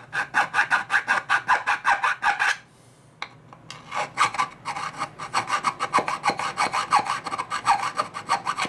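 Hand file worked in quick, even back-and-forth strokes across a part, about five strokes a second. The strokes pause briefly about two and a half seconds in, then carry on.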